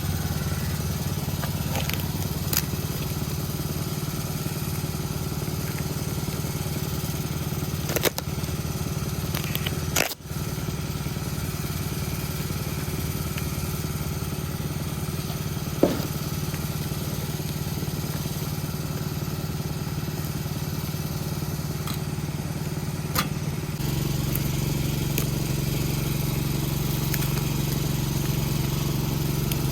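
An engine idling steadily, with a few sharp clicks and knocks from handling parts. A little before the end the engine note gets slightly louder and stays there.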